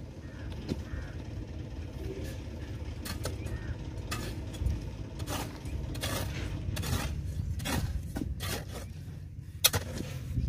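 Irregular sharp clicks and light knocks, like tools and cable being handled, over a steady low rumble.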